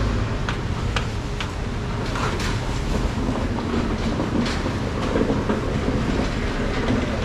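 Knife strokes peeling the skin off a ripe papaya, short sharp scrapes that come several times in the first couple of seconds and now and then after, over a steady low rumble.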